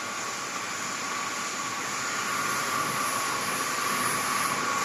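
Sheet-metal forming machinery running steadily: an even mechanical noise with a constant high whine, growing slightly louder.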